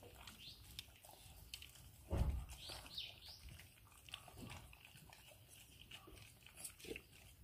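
English bulldog puppies eating raw meat mush from stainless steel bowls: wet chewing and smacking with many small clicks, and one louder thump about two seconds in.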